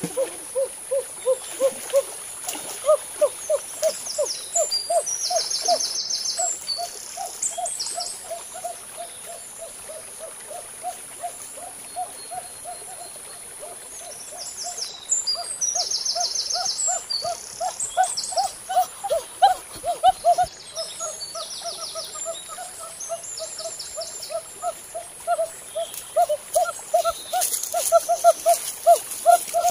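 A long, even series of short low hooting notes, about three a second, over a steady high hiss, with brief buzzing trains higher up now and then.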